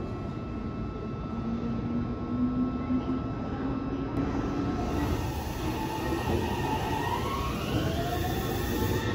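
Meitetsu 2200 series electric train pulling away from the platform. Its inverter-driven traction motors give a whine that rises in pitch as it accelerates, climbing from about six seconds in and levelling off near the end, over a steady low hum.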